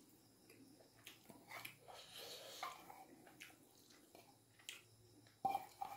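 Faint clicks and soft squishes of fingers working cooked rice out of a small stainless steel bowl onto a steel plate, then near the end a louder clink of the steel bowl against the plate with a short metallic ring.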